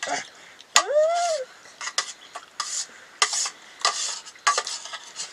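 A utensil stirring and scraping in a cooking pot, with repeated short scrapes about two a second. About a second in comes a brief tone that rises and then falls.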